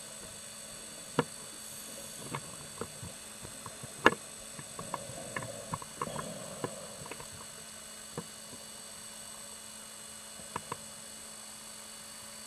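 Underwater audio from a diver's camera: a steady hiss with a faint constant hum, broken by scattered sharp clicks and knocks, the loudest about four seconds in, with a short spell of busier noise and clicking in the middle.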